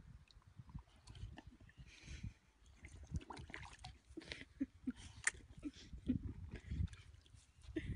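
Miniature bull terrier snapping at a tennis ball floating in a paddling pool: small irregular splashes and biting noises at the water's surface.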